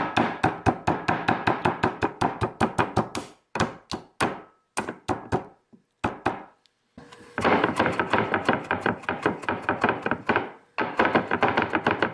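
Slices of ginger being smashed and chopped up on a cutting board: a fast run of sharp blade strikes, about five or six a second. The strikes thin out to scattered hits for a few seconds in the middle, then resume at full pace.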